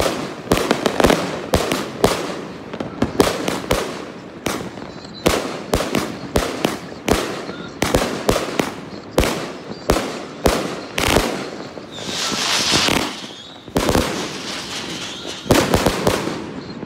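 A 100-shot consumer firework cake firing its shots in quick succession: sharp bangs about two a second as the shells launch and burst. About twelve seconds in, the bangs pause for a second or so of hissing, then a few more shots follow near the end.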